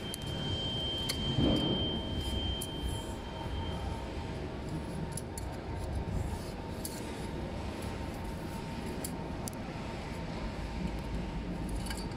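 Wires and a plastic connector being pushed through an electric scooter's hollow metal stem tube, with scattered light clicks and scrapes over a steady low rumble.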